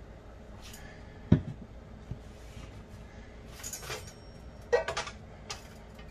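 Kitchen knocks and clatter as a frying pan is handled on an electric coil stove: one sharp knock about a second in, then a few shorter rattles and clinks of the pan and utensils a few seconds later.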